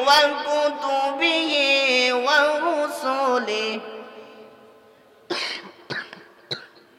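A boy's melodic Quran recitation: a held, ornamented phrase that ends and dies away a little before four seconds in. Then he coughs three short times into his fist, the first cough the loudest.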